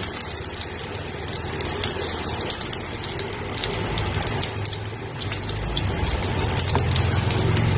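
Garlic cloves sizzling in hot cooking oil in a pot, a steady hiss with many small crackles. A low steady hum grows louder over the last few seconds.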